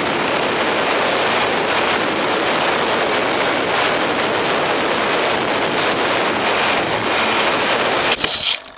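Steady rush of air over the onboard camera of a low-flying radio-controlled model plane. A little past eight seconds in, a few sharp knocks as the plane comes down in the grass, and the rush stops.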